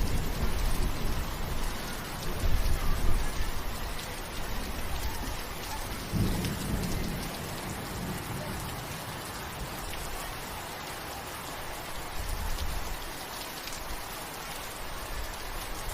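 Steady rain falling, a continuous hiss of drops, with low rumbles of distant thunder swelling up about two, six and twelve seconds in.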